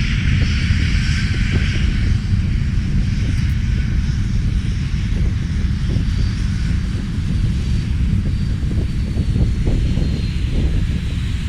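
Boeing 747-400 jet engines running: a deep, steady rumble, with a high whine that is strongest in the first couple of seconds and then fades.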